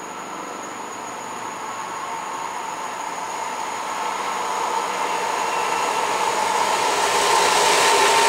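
BR232 diesel locomotive hauling a train of coal wagons approaching, its engine and running noise on the rails growing steadily louder, with a steady whine over the top.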